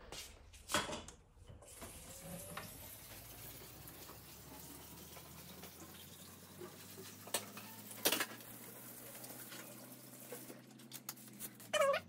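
Kitchen tap running while the dishwasher's plastic drain filter is rinsed under it, with a few sharp knocks of the plastic parts against the sink.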